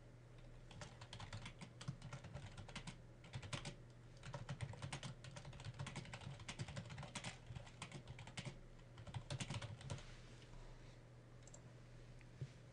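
Typing on a computer keyboard in quick runs of keystrokes, stopping about ten seconds in, then a single click near the end, over a low steady hum.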